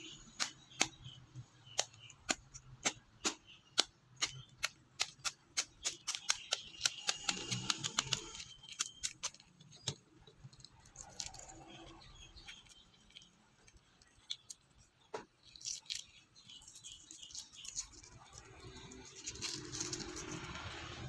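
Rhythmic hard knocks of kitchen work, about two to three strikes a second for about ten seconds, then a few scattered clicks and light rustling.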